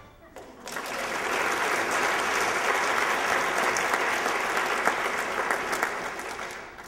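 Audience applauding: many people clapping, starting about half a second in and dying away near the end.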